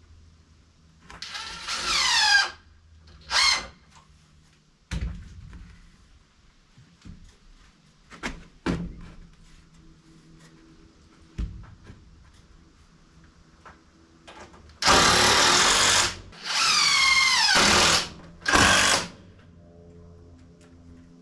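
Cordless drill driving screws into a wooden 2x4 shelf frame: several short bursts of the motor's whine, the pitch falling during each run, with a few knocks of wood in between.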